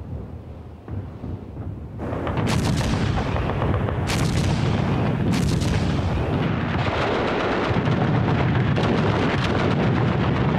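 Battle sound effects of artillery and gunfire: a low rumble at first, then from about two seconds in, loud continuous firing with a few sharp reports standing out.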